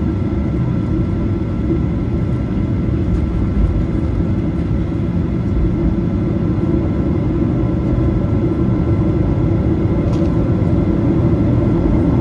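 Cabin noise of a Boeing 737-800 taxiing: a steady rumble from its CFM56 turbofan engines at low thrust, with faint steady whining tones over it. It grows gradually louder toward the end.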